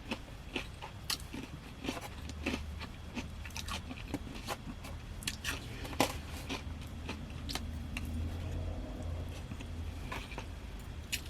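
A person eating close to the microphone: chewing and biting food, with irregular wet clicks and small crunches. A low steady hum joins about two seconds in and fades near the end.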